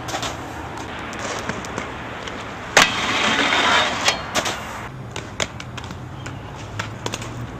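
Aggressive inline skate wheels rolling on concrete, then a sharp clack about three seconds in as the skates lock on and a grinding scrape lasting about a second, followed by several sharp clacks of the skates landing and hitting the ground.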